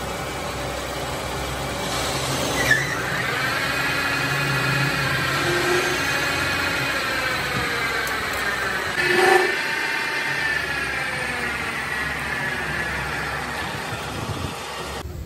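Workshop machinery running steadily with a low hum and a whine that drifts slowly in pitch. A sharp click comes about three seconds in and again about nine seconds in, each followed by the whine starting afresh.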